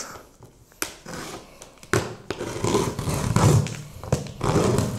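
Packing tape on a cardboard box being slit with the point of a screw and torn open: a sharp click, then scraping and ripping from about two seconds in.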